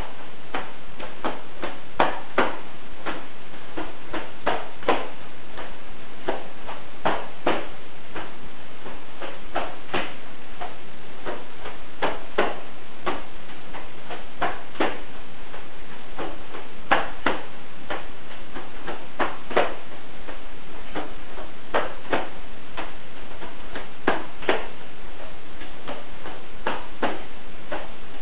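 Sharp slaps and snaps at irregular intervals, often in quick pairs or small clusters, from hands and sleeves in fast whipping arm strikes of a tongbei quan form, over a steady hiss.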